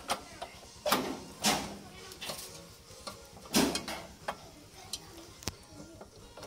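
Irregular clicks and knocks, some with a brief scrape, as hands work metal parts at a motorcycle's rear footrest and exhaust.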